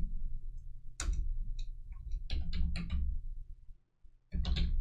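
Computer keyboard keystrokes typing into a search box: a few separate clicks, then a quick run of several, over a low steady background hum.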